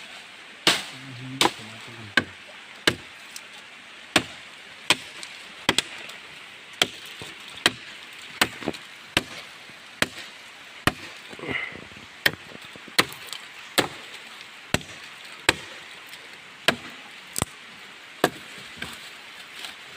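Wood being chopped by hand: sharp blows of a blade into wood, about one a second, steady and even.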